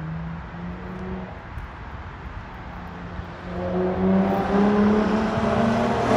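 V6 exhausts of Infiniti G-series coupes: one car rolling along at low revs, then a second car approaching and accelerating, its engine note climbing and getting louder from about three and a half seconds in.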